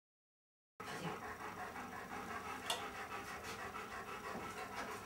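After a moment of silence at a cut, a Belgian tervueren dog panting steadily, with a couple of light clicks a few seconds in.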